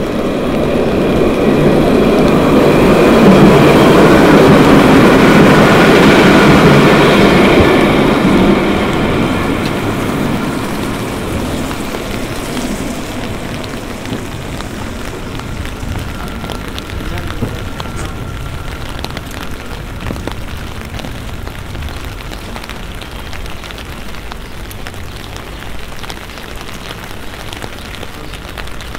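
A tram passes along the wet street, swelling to its loudest about four to seven seconds in with a steady electric whine and hiss of wheels on wet rails, then fading. Steady rain pattering on an umbrella continues under it.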